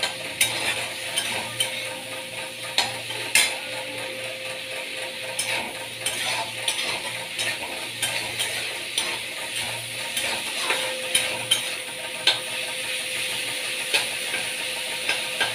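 Dried fish (shutki) sizzling as it fries in oil and spices in a metal kadai, while a metal spatula stirs and scrapes it, clicking irregularly against the pan. A steady faint hum runs underneath.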